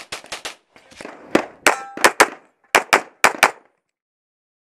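Rapid pistol fire, about a dozen shots mostly in quick pairs, with a brief metallic ring after one shot a little under two seconds in. The shooting cuts off suddenly about three and a half seconds in.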